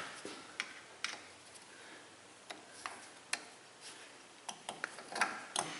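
Light, irregular metal clicks and taps of a screwdriver tip prying at a rust-seized wheel-bearing snap ring in a steering knuckle, a dozen or so, coming a little faster near the end.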